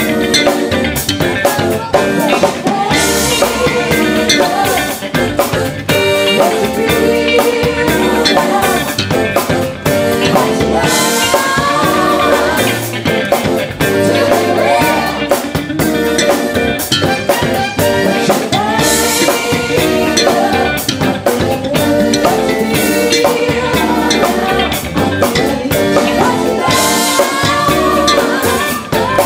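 Live funk band playing a disco song: singers over drum kit, electric bass and guitar.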